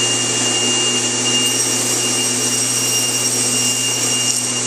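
Table saw with a Micro-Kerf40 thin-kerf blade running steadily at speed, the blade spinning clear of the work. The sound is an even motor hum with a thin high whine.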